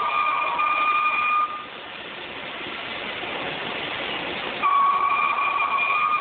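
Metal stone planer cutting a moulding into Indiana limestone: a high, steady squeal over a hissing scrape comes twice, each lasting about two seconds, with a plain rough hiss between.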